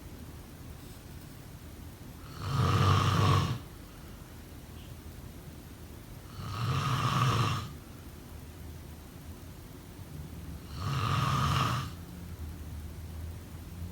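A sleeping person snoring: three loud snores about four seconds apart, each lasting about a second.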